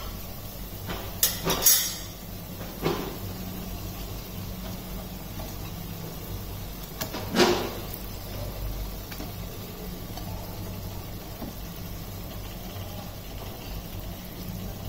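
A few soft knocks and clatters as surmai (kingfish) steaks are laid into a kadhai of fried masala, the loudest about seven seconds in, over a steady low hum.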